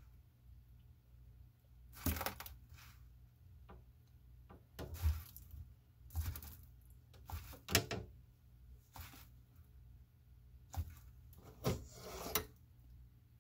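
Bearded dragon biting and chewing a slice of mango: short, irregular chomping sounds, about eight of them, spaced a second or two apart.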